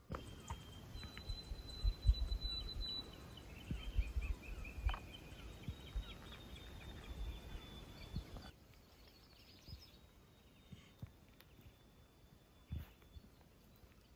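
Faint birdsong, thin held whistles and chirps, over low rumbling bumps of wind or handling on the microphone; about eight and a half seconds in it drops to a quieter bed with faint birdsong.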